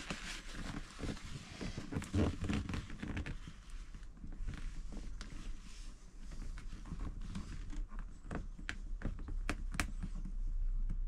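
Hands working plastic caravan window trim into its rubber seal: scattered small clicks, rubs and rustles as the fingers press and slide along the trim, with some tissue rustling in the first few seconds.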